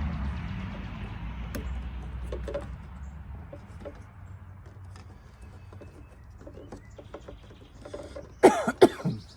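A passing vehicle's rumble fades away over the first few seconds, followed by light clicks and handling noises. Near the end a man coughs three times in quick succession, the loudest sound here.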